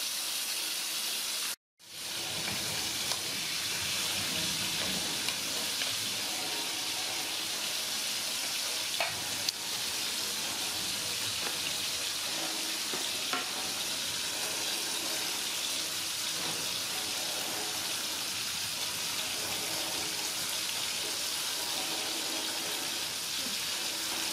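Horse mackerel frying in hot oil in a wok: a steady sizzle, cut by a moment of silence near the start.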